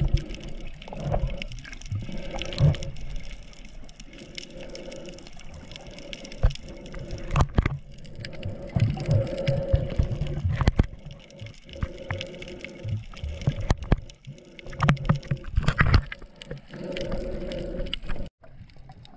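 Water gurgling and sloshing around a GoPro camera in the sea while snorkeling, muffled, with scattered clicks and a low tone that comes and goes every couple of seconds.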